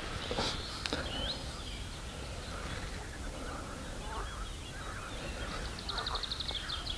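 Faint birdsong in the background: scattered short chirps and whistles, with a quick high trill near the end.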